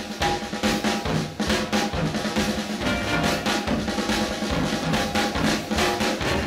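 1960s instrumental drum record: a drum kit plays busy snare and bass-drum beats with fills, driving over a bass line and other backing instruments.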